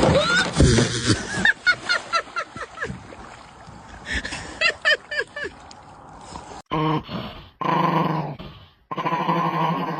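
A dog yipping and whimpering in quick, short, high cries through the first half. In the second half come three longer, buzzing, lower growl-like sounds.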